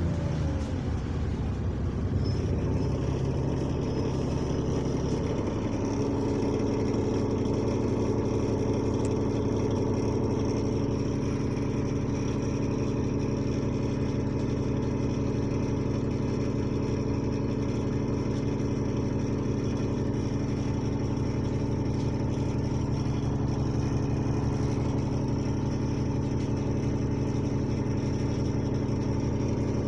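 The engine of double-decker bus AL T102 running steadily, heard from inside the passenger saloon, on a bus with a turbo leak. A faint high whine sets in about two seconds in, and the engine's low note shifts around six seconds in.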